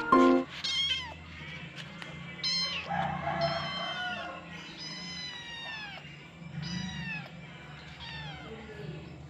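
A hungry kitten meowing over and over, high-pitched cries that each fall in pitch, coming roughly every second or so.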